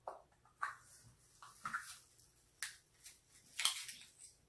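A person eating cooked oyster close to the microphone: a series of short, quiet, wet chewing sounds, with light clicks and rustles from handling the oyster shells.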